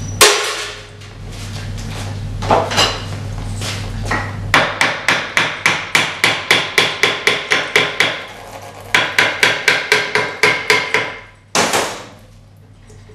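Hand-tool work on a Bosch 8-cylinder inline diesel injection pump while its governor cover is taken off. There is a sharp knock at the start and another a couple of seconds in. Two runs of rapid, even metallic clicks follow, about five a second, and a loud knock comes near the end.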